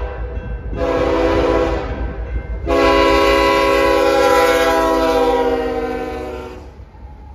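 Union Pacific SD70ACe locomotive's air horn sounding for a grade crossing: a short blast, then a long blast of about four seconds whose pitch drops slightly as the locomotive passes. A steady low rumble of the locomotives and train runs beneath and continues after the horn stops.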